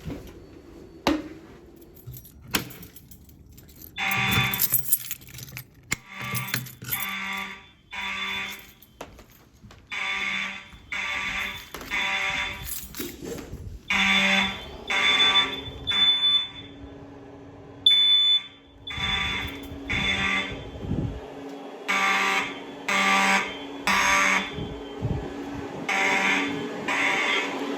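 Siemens fire alarm horn strobes sounding in the harsh buzz of mechanical horns, starting about four seconds in after a few clicks. They blast in repeated groups of three short blasts with a pause between groups, the temporal-three evacuation pattern.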